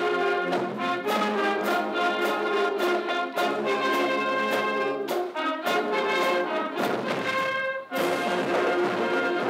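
A marching band playing brass-heavy music: full sustained chords with sharp accents, and a brief break near the end before it comes back in.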